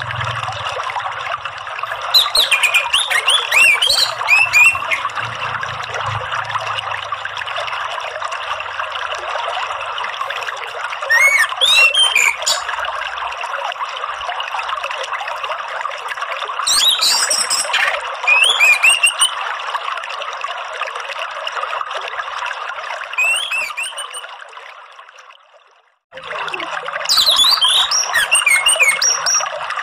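Running water trickling steadily, with short bursts of orange-headed thrush (anis merah) song every five or six seconds, a therapy track for a caged bird that has stopped singing. About four seconds before the end the whole sound fades out to silence and starts again at once.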